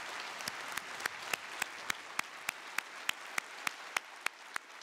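Parliamentary audience applauding, the scattered clapping settling into rhythmic, synchronised clapping at about three to four claps a second.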